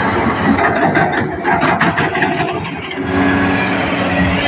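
Kobelco 380XD excavator's diesel engine running steadily. Starting just under a second in, dirt and clods pour from the bucket into the steel dump-truck bed with a rattling clatter for about two seconds, then the engine is heard alone again.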